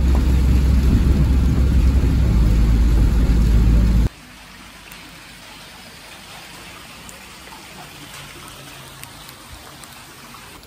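Rain on a car's windows and body heard from inside the cabin, over a deep rumble of the moving car; it is loud and steady. About four seconds in it cuts to a much quieter, steady outdoor rain hiss with a few faint ticks.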